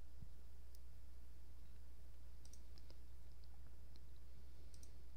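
Faint computer mouse clicks, a handful of scattered single clicks, over a steady low electrical hum.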